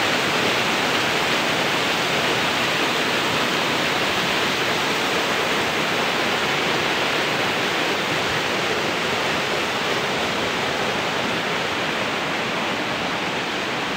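Waterfall cascading steadily down a steep rocky channel, a continuous loud rush of white water from a strong flow near its source.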